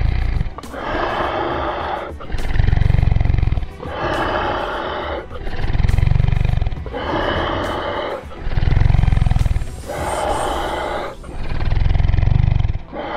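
Dinosaur roar sound effects, repeated over and over about every second and a half, alternating a low roar with a higher one, with music underneath.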